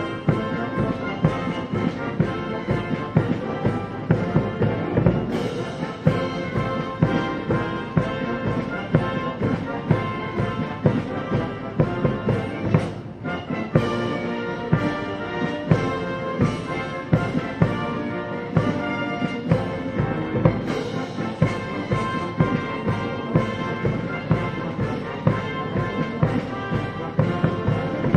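Live military band playing, with brass over a steady drum beat. The piece ends with a sudden cutoff at the very end.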